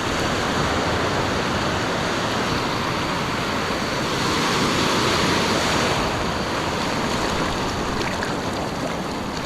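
Ocean surf washing against a rock ledge: a steady rush of breaking whitewash that grows a little louder about halfway through.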